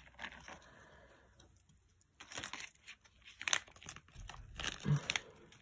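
Thin plastic zip bag of beads crinkling in short bursts as hands handle it and a strand of lava-stone beads, starting about two seconds in. A brief low hum sounds near the end.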